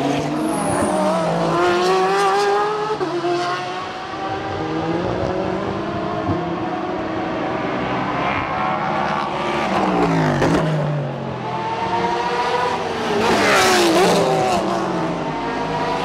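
Endurance race cars passing one after another at speed, several engine notes overlapping and each falling in pitch as it goes by.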